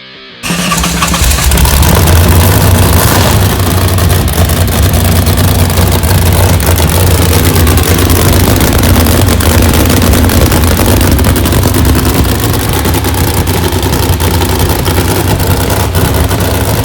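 Motorcycle engine running loud, cutting in abruptly about half a second in.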